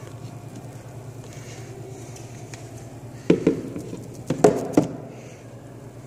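A steady low hum, with a quick cluster of five or so sharp knocks and thumps about halfway through.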